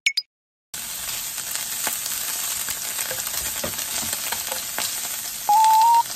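Sliced lotus root sizzling steadily as it fries in a nonstick frying pan, with light scrapes and taps of cooking chopsticks moving the slices. Near the end, background music with a clear melody comes in over it, louder than the sizzle.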